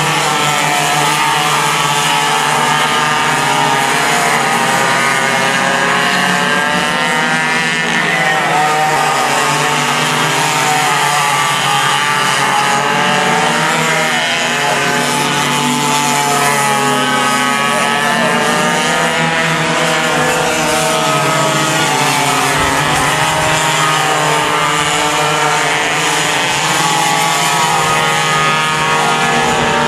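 Several racing go-kart engines running at once at high revs, their pitch rising and falling as the karts brake and accelerate through the corners.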